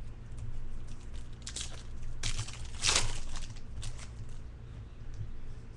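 Baseball card pack being handled: chrome cards sliding against each other and foil wrapper crinkling in short rustles, loudest about three seconds in, over a steady low hum.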